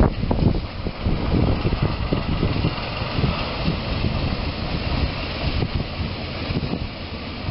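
Diesel shunting locomotive's engine running as the locomotive moves slowly away, growing gradually fainter.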